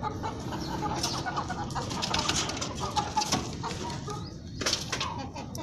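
A flock of Aseel chickens clucking in short, scattered calls, with frequent brief taps and rustles.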